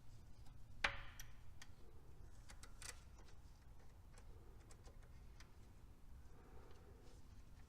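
Scattered small clicks and taps of a hand tool and small metal parts being handled inside a car's distributor, with one sharper click about a second in.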